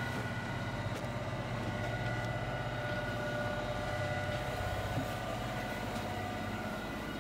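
A sailboat's inboard engine running steadily under way, an even low hum with a few faint steady whines above it.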